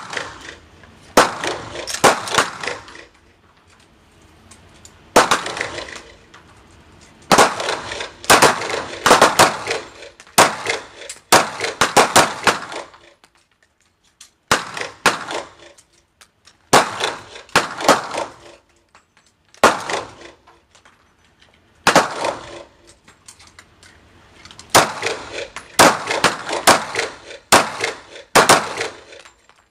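9 mm shots from a Glock 17 pistol mounted in a Roni carbine stock, fired singly and in quick strings of several shots, each echoing off the walls of an indoor range.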